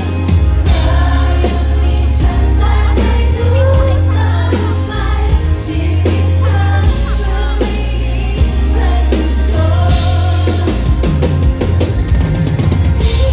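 A woman singing a pop ballad live into a microphone over a band with a strong bass line.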